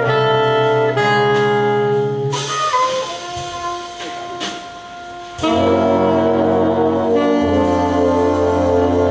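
Jazz big band of saxophones, trumpets and trombones playing live, holding full sustained chords. A couple of seconds in it drops back to a quieter passage with a single held note over a cymbal wash, then the whole band comes back in loud about five and a half seconds in.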